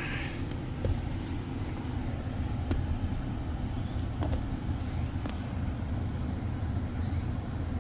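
Mitsubishi Triton's 4D56 diesel engine idling steadily, with a few faint clicks on top.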